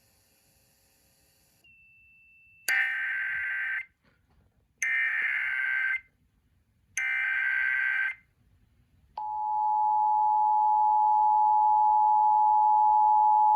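Emergency Alert System activation tones, encoding a flash flood warning. First come three short bursts of warbling digital data (the SAME header), each about a second long with about a second between them. Then, about nine seconds in, the steady two-tone attention signal starts and holds.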